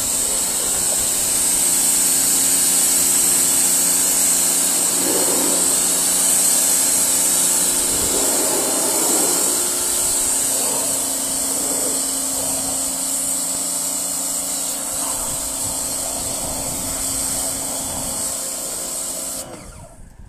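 Yard Force compact pressure washer spraying at full pressure on its soaking setting. The steady motor-and-pump hum runs under the strong hiss of the water jet, and both cut off suddenly near the end.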